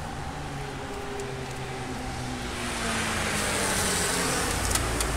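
Road traffic at a city street. A car engine hums low for the first couple of seconds, then the traffic noise swells as vehicles drive past. A few sharp clicks come near the end.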